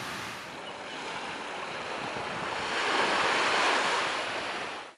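Small waves washing up on a sandy beach, a steady hiss of surf that swells to its loudest about three seconds in and cuts off suddenly at the end.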